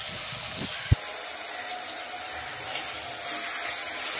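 Chopped onions and tomatoes frying in oil in a clay pot with a steady sizzle as a ladle stirs them. There are a few soft knocks of the ladle against the pot and a sharp tap about a second in.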